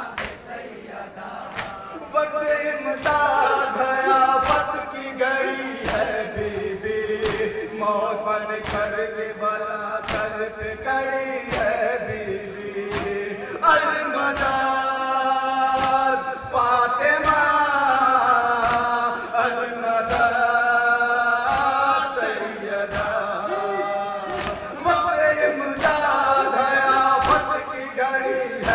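Male voices chanting a nauha, a Muharram lament, in long sung phrases, with sharp strikes keeping an even beat roughly every one and a half seconds, the rhythmic chest-beating (matam) that goes with nauha recitation.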